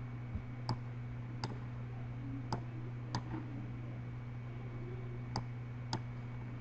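Computer mouse clicking, six or so single clicks spread over several seconds, faint over a steady low electrical hum.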